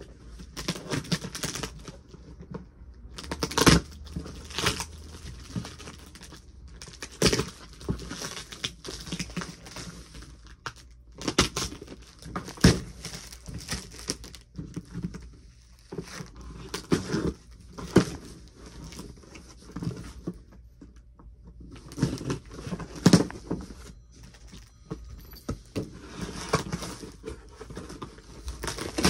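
A cardboard shipping box being handled and opened by hand: irregular rustling, crinkling and scraping of cardboard, with sharp knocks now and then.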